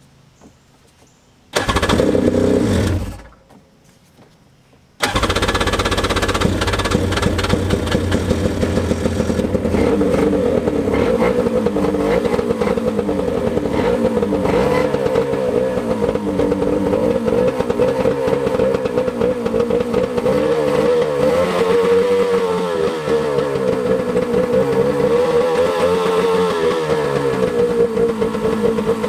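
Freshly rebuilt Yamaha 650 two-stroke twin of a 1993 WaveRunner 3 being test-fired out of the water: it catches for about a second and dies, then about five seconds in it fires and keeps running. Its speed sways up and down near the end, as the newly rebuilt engine's fuel lines are still filling.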